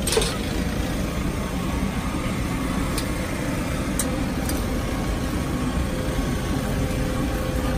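Steady low mechanical rumble, with a few sharp clicks and scrapes of a steel spatula on a flat iron griddle.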